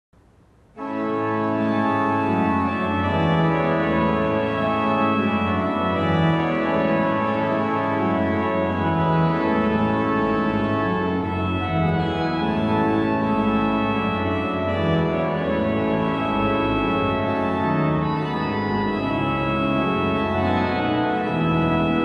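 Organ music playing sustained chords, starting suddenly about a second in.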